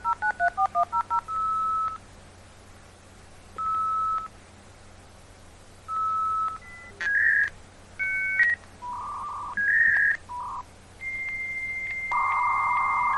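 Dial-up modem dialing out: a rapid string of touch-tone digits, then short beeps repeating every couple of seconds, then the handshake of shifting beeps, a steady high tone and a loud hissing screech as the two modems negotiate the connection.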